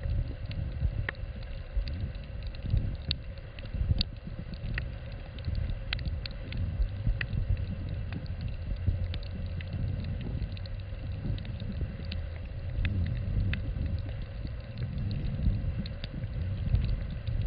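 Underwater ambience picked up by a snorkeller's submerged camera: an uneven low rumble of water moving around the camera, with scattered sharp clicks and a faint steady hum.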